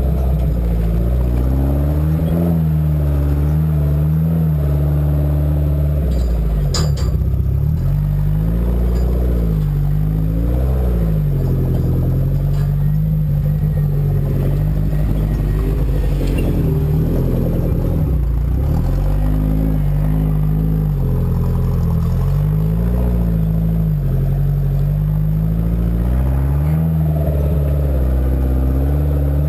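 Suzuki 4x4's engine driven off-road, its revs rising and falling again and again as the throttle is worked over rough ground. One sharp knock about seven seconds in.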